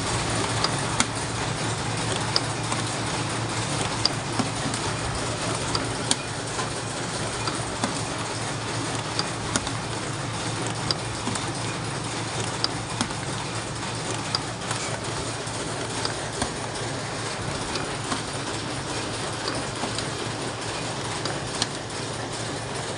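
CNC spring coiling machine running steadily, with a sharp click every second or two over its hum and whirr.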